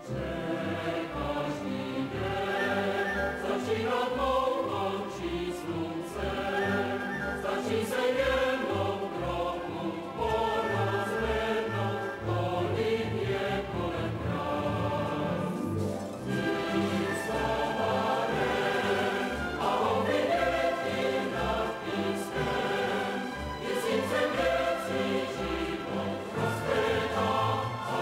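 A choir singing with instrumental accompaniment: soundtrack music.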